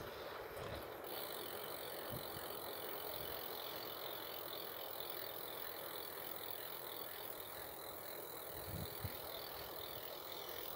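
Bicycle freewheel hub ticking steadily as the bike coasts without pedalling.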